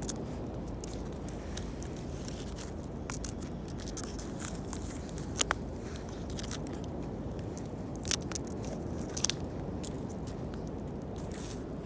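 Wood fire crackling, with scattered sharp snaps and pops over a steady low background noise; a few louder pops come about five, eight and nine seconds in.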